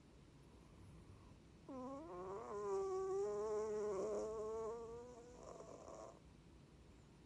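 A sleeping cat snoring. After a quiet breath, one long snore with a steady pitch begins about two seconds in and lasts about three and a half seconds, ending in a short breathy rasp.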